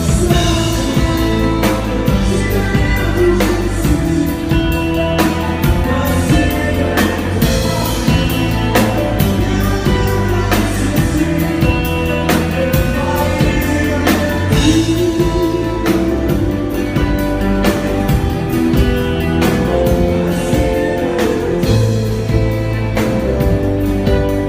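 Upbeat pop song with singing over a steady drum beat and bass.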